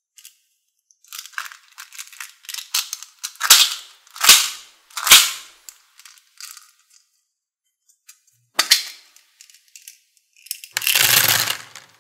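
Small plastic cup and lid handled with scattered clicks and three sharp plastic knocks, then near the end a second-long rattle of small plastic beads poured into a plastic tray.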